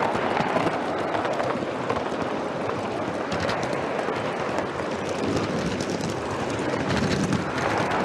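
Gauge One live-steam model locomotive running, heard close up from its tender: a steady rattle and hiss with many small clicks.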